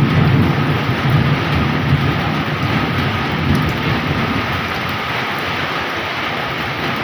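Heavy tropical rain pouring steadily, with a low roll of thunder that fades away over the first few seconds.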